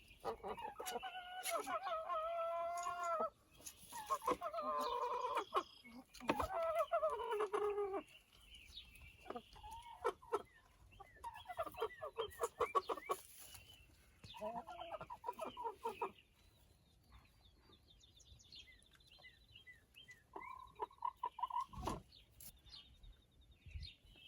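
Rooster giving a series of odd whistling calls, some drawn out and bending in pitch and one rapidly pulsed, with pauses between them; they are not an ordinary crow.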